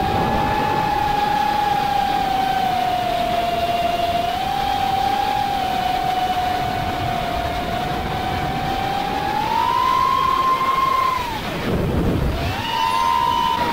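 FPV quadcopter's motors and propellers whining at a steady pitch, with wind rush on the onboard camera's microphone. Near the end the whine drops away sharply as the throttle is cut, then climbs straight back up.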